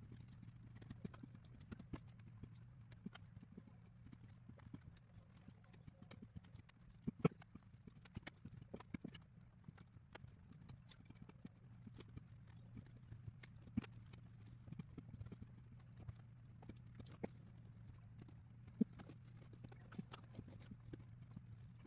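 Light, irregular clicks and taps of laser-cut wooden kit parts and tools being handled and pressed together on a tabletop, over a faint steady hum.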